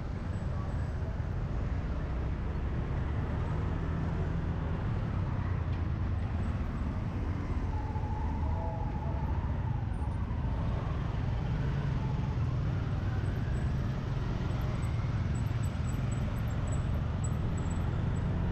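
Motorbike being ridden through city traffic: a steady low engine and road rumble with passing scooters and cars. A short wavering tone sounds about eight seconds in.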